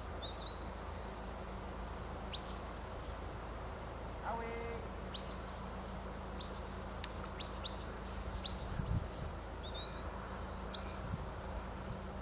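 Shepherd's whistle commands to a working sheepdog: about five sharp, high whistles, each shooting up in pitch, held briefly and cut off, spaced a second or more apart.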